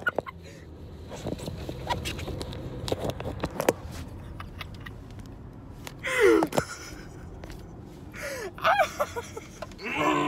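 Low, steady car-cabin rumble from a car that is speeding up, with knocks and rubbing from the phone being handled in the first few seconds. A person's voice gives two short cries, about six seconds in and again near eight and a half seconds.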